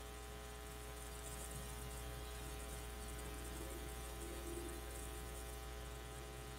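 Steady low electrical mains hum with a faint buzz. No other sound stands out.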